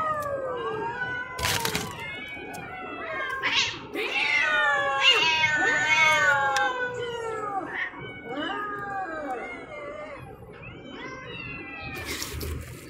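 A group of stray cats meowing loudly over one another, begging for food: many overlapping rising-and-falling cries, most crowded and loudest in the middle. Two brief sharp noises cut in, about a second and a half in and again near the end.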